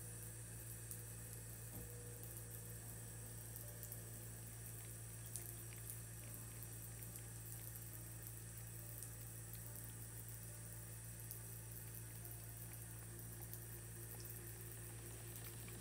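Bathroom sink faucet running steadily as a thin trickle, over a steady low hum, with a few faint ticks.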